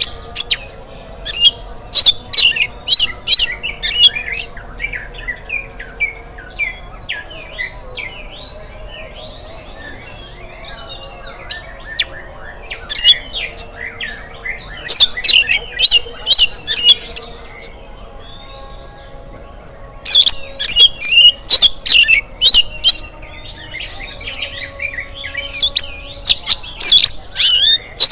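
Oriental magpie-robin (kacer) singing in loud bouts of sharp, rapid, high notes, with quieter warbling phrases between the bouts.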